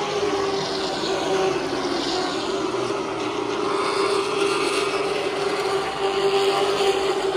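Limited Late Model stock cars racing on a short oval, their engines making a steady drone that swells slightly as the pack comes around.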